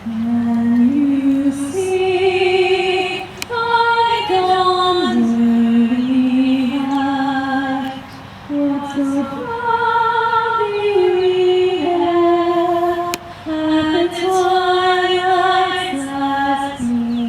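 A woman singing solo, a slow melody of long held notes that step up and down in pitch, with short pauses for breath about eight and thirteen seconds in.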